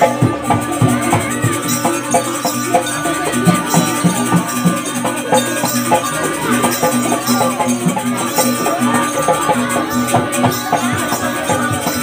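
Traditional Banyuwangi barong dance music: drum and other percussion strikes over steady held tones, playing without a break.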